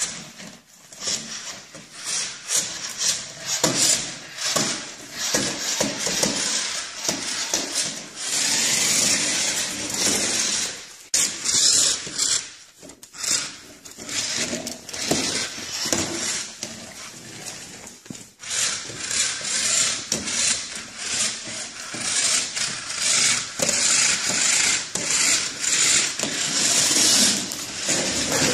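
Small toy remote-control car's electric motor and gears whirring and rasping in stop-start bursts as it drives over a wooden floor.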